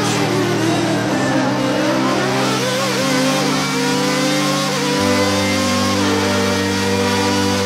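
A McLaren-Honda Formula One car's engine heard from on board, its pitch rising and falling as it revs through the corners. Background music with steady bass notes plays under it.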